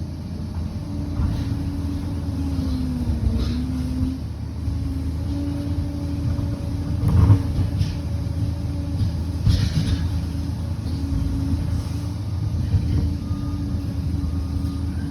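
Liebherr 746 crawler bulldozer's diesel engine running steadily at work, its pitch sagging briefly about three seconds in as it takes load. Occasional clanks and knocks from the tracks and blade break through the low rumble.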